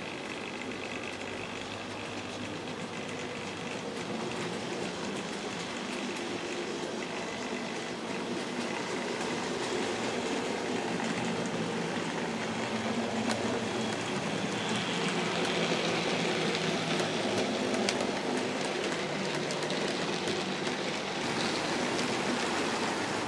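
Vintage OO gauge model train running on the track: a steady rattling run of wheels over the rails and the locomotive's motor. It grows somewhat louder toward the middle, with a few sharp clicks.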